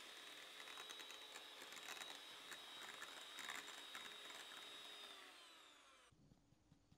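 Electric hand mixer running at medium speed with a steady high whine and irregular clicks of the beaters in the batter. Near the end its pitch falls as it is switched off and winds down to a stop.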